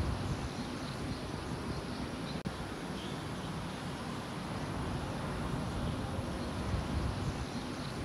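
Steady outdoor ambience: a low rumbling noise with faint, scattered bird chirps over it, cutting out for an instant about two and a half seconds in.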